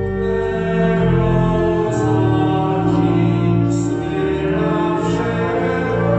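Church hymn: singing over long held chords, the opening song of the Mass before the priest's greeting.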